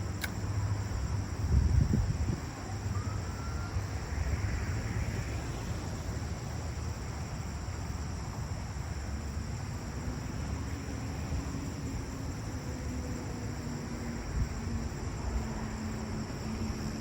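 Outdoor pond-side ambience: a steady high insect buzz over a low rumble, with a brief bump on the microphone about two seconds in and a faint steady hum joining about halfway through.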